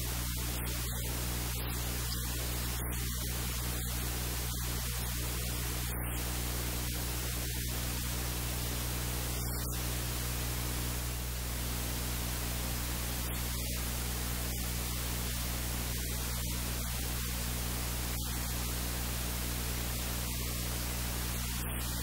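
Steady hiss with a low, constant electrical hum: noise on the recording, with no distinct sound from the scene.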